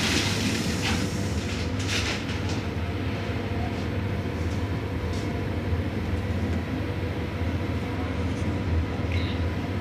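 Inside a UIC-Z1 passenger coach as the train pulls away: the steady low rumble of the wheels on the rails, with a few sharp clicks and knocks from the wheels on the track.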